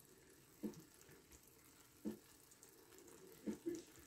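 Faint sizzling of sauce cooking in a clay tagine on the burner, broken by a few short, soft knocks.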